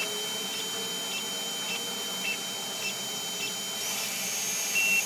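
Creality CR-10S Pro 3D printer auto-levelling its bed: a steady high whine over fan noise, with a short stepper-motor chirp about every half second as the head moves to and probes each point of the grid.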